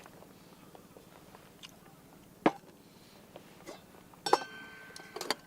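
Eating sounds: faint chewing and small clicks, a sharp tap about two and a half seconds in, and near the end a ringing clink of tableware.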